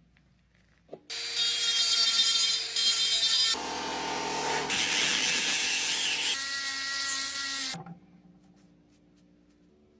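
A small electric motor runs loudly for about seven seconds with a steady whine. It starts just after a click about a second in, changes pitch twice and stops suddenly near the end.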